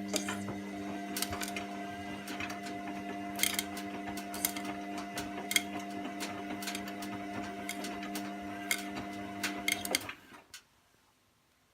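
Washing machine running with a steady motor hum and irregular clicking throughout. Hum and clicks stop abruptly near the end.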